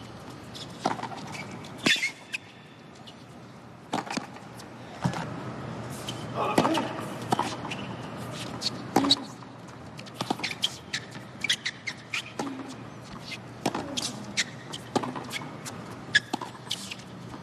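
Tennis rally on a hard court: rackets striking the ball and the ball bouncing, heard as repeated sharp knocks at an uneven pace.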